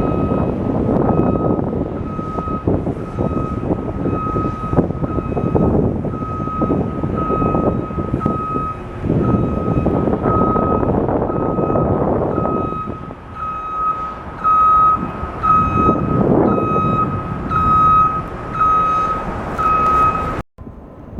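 Reversing alarm of a truck or work vehicle beeping steadily at an even rate, over rumbling engine and machinery noise. The beeping grows louder in the second half and cuts off suddenly near the end.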